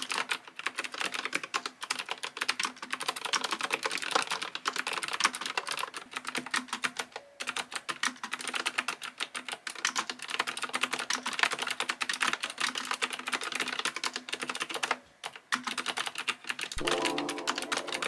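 Rapid, continuous typing on an AZIO Retro Classic mechanical keyboard with clicky blue switches, broken by a couple of brief pauses. Background music comes in near the end.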